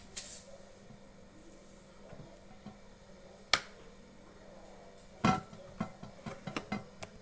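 Sharp clicks and knocks of hard parts being handled: a single click about three and a half seconds in, then a quick run of clicks and knocks near the end.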